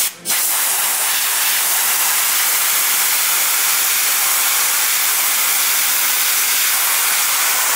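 Compressed-air blow gun on a shop air hose blowing a steady hiss. It gives a short puff first, then holds a continuous blast.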